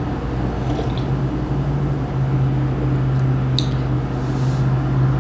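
A steady low machine hum from an appliance running in the room, getting a little louder after about two seconds. A woman takes a sip of coffee from a glass mug near the start, and there is a faint small click a little over halfway through.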